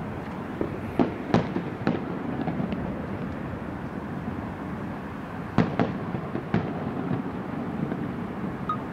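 Aerial fireworks shells bursting: a few sharp bangs about a second in, then another cluster about five and a half seconds in, over a steady low background noise.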